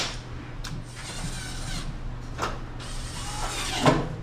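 Hand work on a dryer cabinet: tool and panel handling with a few sharp clicks and knocks, the loudest knock near the end.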